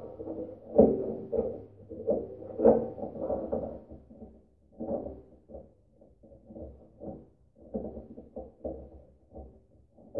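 Irregular knocks, thumps and scraping from hand work under a garden tractor, as a part is screwed in hand-tight.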